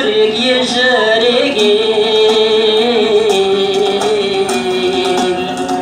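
Singing over instrumental accompaniment: long, drawn-out notes that bend and slide in pitch.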